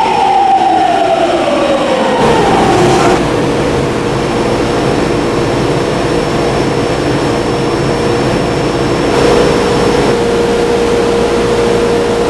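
Toei 10-300 series subway train braking to a stop: its VVVF inverter motor whine falls in pitch over the first three seconds, then a steady hum while it stands at the platform.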